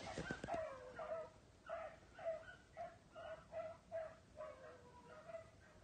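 A rabbit-hunting hound barking in a steady run of short, high yips, about two a second. A few calls are drawn out and fall in pitch.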